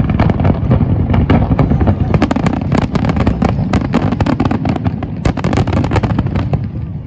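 Fireworks going off in a dense, rapid crackle of sharp pops over a low rumble, thinning out near the end.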